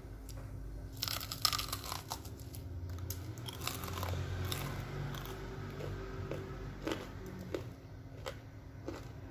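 Biting into crispy cornflake-crusted fried chicken: a burst of crunching about a second in, then chewing with scattered crunches.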